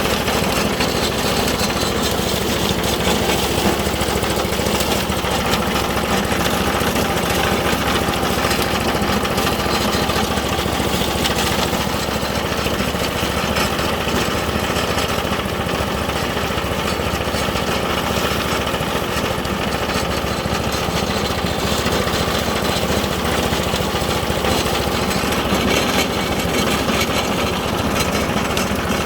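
Hammermill leaf shredder running steadily.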